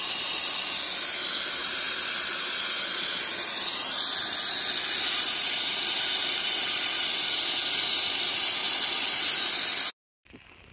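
Vacuum bleeder hissing steadily as it draws power steering fluid out of the reservoir through a hose, then cutting off suddenly near the end.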